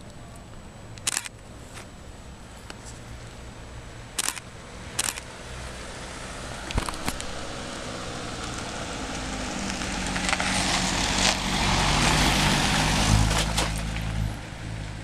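A fire-brigade vehicle drives up and passes close by, its engine and tyre noise growing steadily louder to a peak a couple of seconds before the end, then dropping away. A few sharp clicks come before it approaches.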